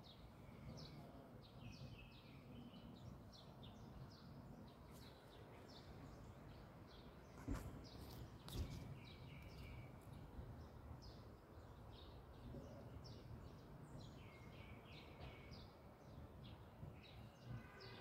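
Birds chirping faintly, a steady run of short falling notes, over a low steady rumble. Two brief knocks come a little past the middle.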